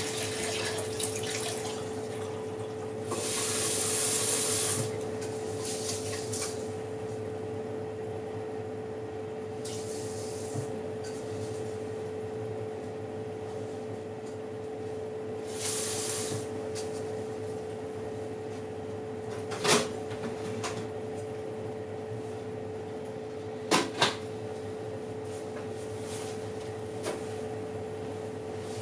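Electric oven running with a steady hum and a constant tone, heard while cookies bake. Over the hum come a few hissing bursts, the longest about two seconds, and sharp clicks: one about twenty seconds in, then two in quick succession a few seconds later.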